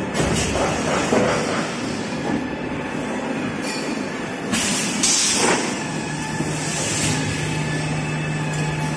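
Toilet paper and kitchen towel rewinding production line running, a steady mechanical clatter and rush of rollers and conveyors. About halfway through there is a short burst of hiss, and a steady low hum joins about two-thirds of the way in.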